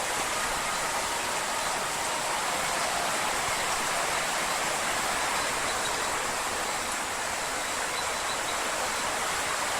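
Torrential downpour: heavy rain pouring down in a steady, loud hiss with no letup.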